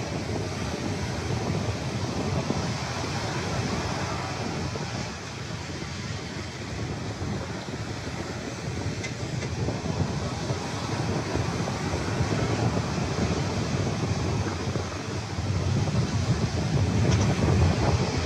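Surf breaking and washing up a sandy beach, with wind buffeting the microphone: a continuous rushing with a low rumble that swells louder near the end.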